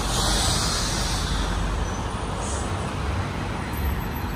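Street traffic noise: a steady low rumble of passing vehicles, with a brief burst of hiss in the first second or so.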